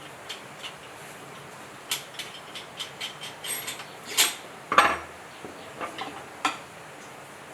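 Metal tools and parts clinking and tapping in an irregular series of clicks, with the loudest knock a little before five seconds in.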